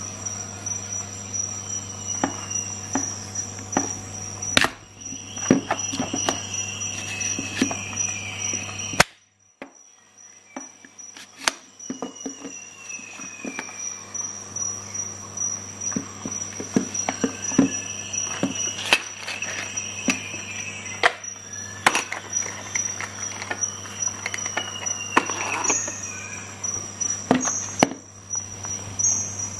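Plastic clicks, knocks and short sliding scrapes of the Parkside PHET 15 B1 electric stapler's spring-loaded magazine slider being pulled open and pushed back, over a steady low hum and a high whine.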